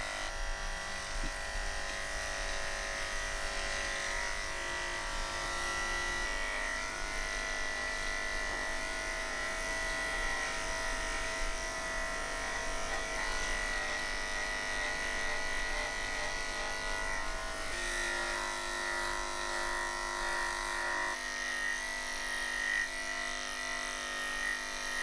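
Cordless electric pet clipper running steadily with a high buzzing hum as its blade cuts through a Persian cat's coat; the hum shifts a little a few times as the clipper's load changes.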